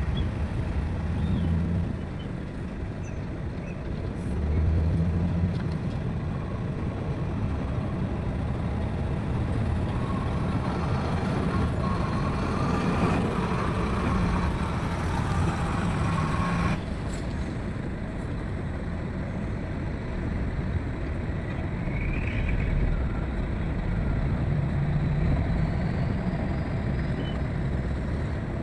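Heavy diesel construction machinery running, its engine rising and falling under load, with a thin steady whine in the middle that cuts off sharply.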